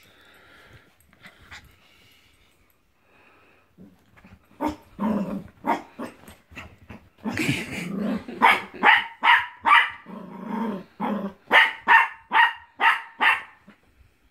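Puppy barking in a rapid string of high-pitched yaps, with throaty growls in between, during rough play with an older dog. The barking starts about four seconds in after a quiet stretch and comes fastest near the end.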